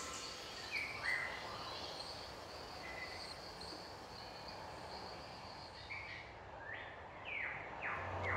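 Birds chirping over a faint outdoor hiss: a run of short high notes for most of the stretch, and a few brief falling chirps near the start and again near the end.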